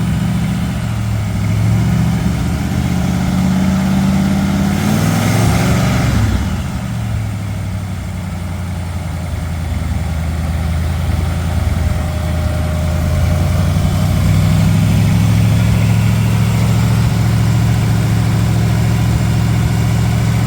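A car engine running close by, its pitch rising and falling over the first few seconds. A brief rush of noise comes about five seconds in, then the engine settles into a steady idle.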